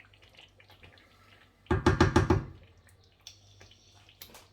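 A quick run of about seven ringing knocks on a metal cooking pot, lasting under a second, about two seconds in.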